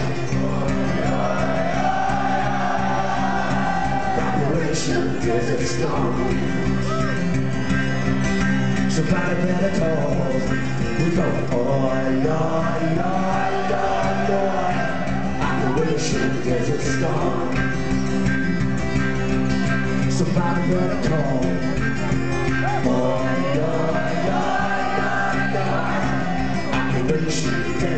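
Live acoustic band music with singers holding long, wavering sung lines over steady accompaniment, three times.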